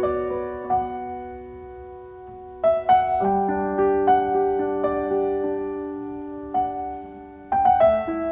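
Piano playing a classical piece: held notes and chords that fade away, with new chords struck about two and a half seconds in and again near the end.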